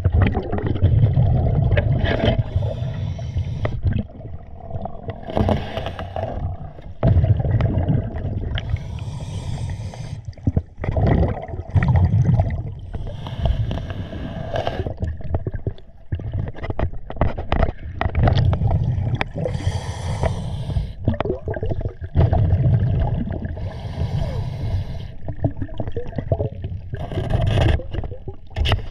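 A scuba diver breathing through a regulator underwater. Hissing inhalations alternate with bursts of exhaled bubbles gurgling, one breath every four to five seconds, with occasional light scrapes and clicks.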